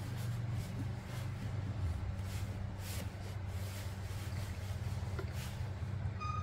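A steady low hum runs throughout, from a motor or engine, with a few small clicks. Water is poured in a thin stream from a thermos flask into a small plastic feeding bottle, fainter than the hum.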